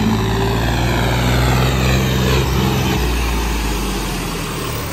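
John Deere 5210 tractor's diesel engine running under load as it pushes through deep floodwater, with the rush and splash of the bow wave thrown off its front wheels. The engine note drops about three seconds in, and the sound eases off near the end.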